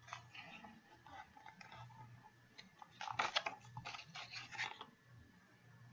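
Paper pages of a picture book rustling and crinkling as the book is handled and held up, in faint scattered crackles that are busiest a little past the middle.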